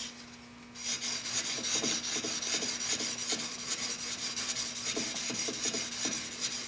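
Steel chisel edge held in a sharpening jig being rubbed back and forth on a fine-grit DMT diamond stone. It makes a steady gritty rasping of short repeated strokes that starts about a second in. This is honing the bevel to raise a burr.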